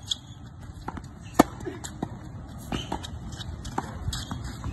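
Tennis balls struck with a racquet during a forehand rally drill on a hard court: a sharp pop about a second and a half in is the loudest, with softer knocks of balls bouncing and being hit around it.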